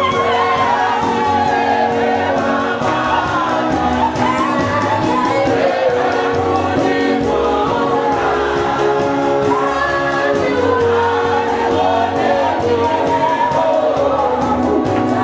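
Gospel group singing through microphones, a lead voice with others joining, over held accompanying notes and a quick, steady beat.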